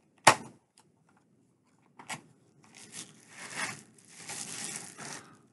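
Hands opening a small cardboard box: a sharp knock about a third of a second in, then a click and a few seconds of rustling and tearing of its packaging.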